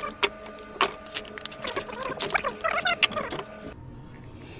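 Metal tools clinking and rattling as a breaker bar and 18 mm socket are handled and fitted onto an engine-mount brace bolt: a run of sharp metallic clicks that stops about three and a half seconds in.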